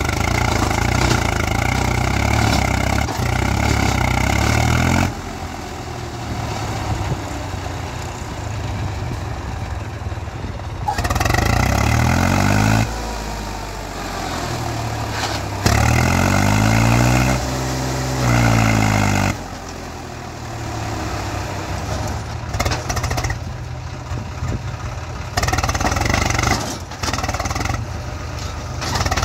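Swaraj tractor's diesel engine revving hard and easing back, over and over, its pitch rising and falling, as it strains to pull a loaded trailer out of loose sand.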